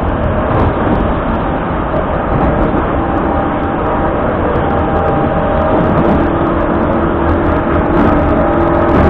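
Vintage metro train running at speed, heard from inside the passenger car: a loud, steady rumble of wheels and running gear on the rails. A steady hum joins about halfway through.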